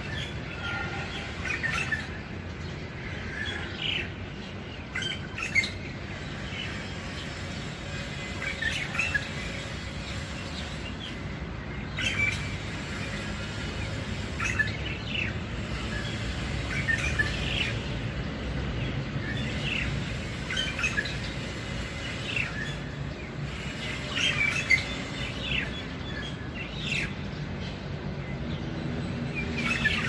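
Long-tailed shrike singing on and on: clusters of short chirps and chattering notes every second or two, over a steady low rumble.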